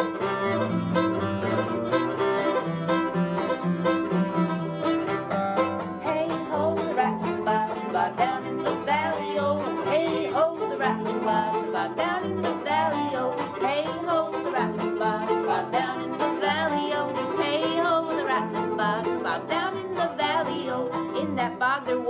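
Nyckelharpa, the Swedish keyed fiddle, bowed in a folk melody over an acoustic guitar strummed in a steady rhythm.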